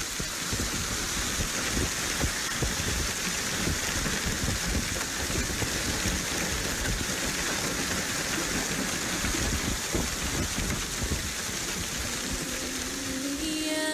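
Heavy hailstorm: hail and rain pelting down hard, with a constant loud rush and uneven low thuds throughout.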